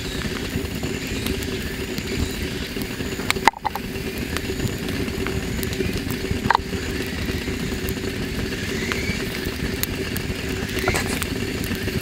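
Wood campfire burning with a steady rush and an occasional sharp crackle, twice standing out clearly.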